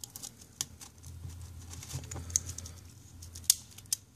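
Light metallic clicks and ticks, irregular and scattered, as the coiled flat spring of a snowmobile chain-case auto tensioner is worked by hand into its metal housing; a faint low hum runs underneath.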